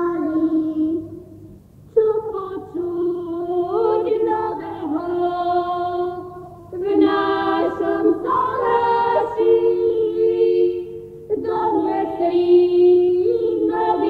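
A group of folk singers singing a Slovak Christmas carol in phrases, with short breaks between them, from an old tape recording.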